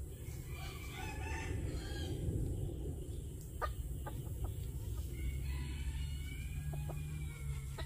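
Rooster crowing twice: a shorter crow about half a second in and a longer one, falling slightly in pitch, from about four and a half seconds in. A few short sharp clicks fall between them, over a steady low rumble.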